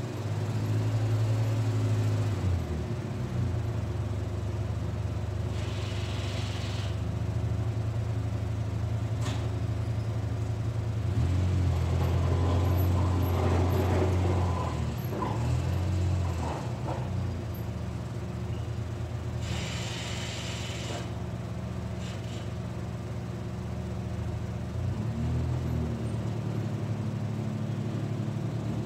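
ATV engine idling close by, a steady hum whose pitch steps up and down a few times, busier and rougher for a few seconds near the middle. Two short spells of hiss break in over it.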